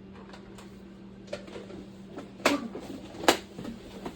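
A serving utensil clacking against a casserole pan while chili is spread: a light click, then two sharp knocks past the halfway point, with soft clatter between, over a steady low hum.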